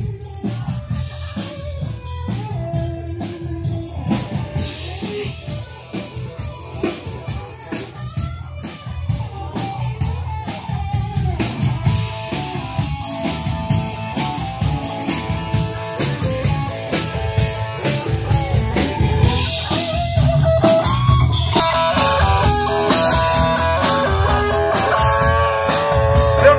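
Live band playing amplified music on electric guitars and a drum kit, growing steadily louder toward the end.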